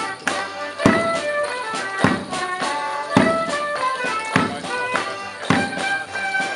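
Live folk tune played for morris dancing, held melody notes over a strong beat about once a second.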